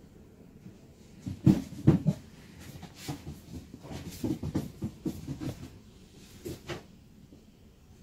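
An irregular series of low thumps and knocks, loudest about one and a half to two seconds in, from footsteps and the handling of a handheld camera carried along a shop aisle.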